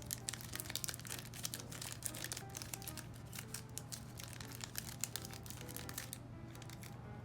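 Foil wrapper of a Pokémon booster pack crinkling as it is torn open by hand, with soft background music underneath. The crinkling thins out about six seconds in.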